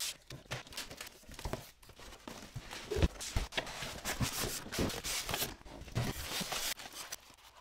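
Cardboard printer box being slit open with a utility knife and its flaps pulled open and handled: irregular scraping, rustling and knocking of cardboard.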